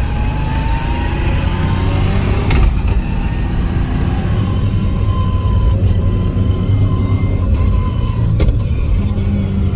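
Turbocharged Nissan Skyline R32 engine running loud and steady under way, heard from inside the cabin. A thin whine sits above the engine note, and two brief sharp sounds come about two and a half and eight and a half seconds in.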